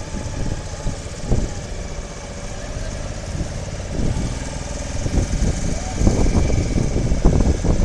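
Small motorboat's engine running steadily on open water, with a heavy low rumble, like wind on the microphone, that grows stronger about six seconds in.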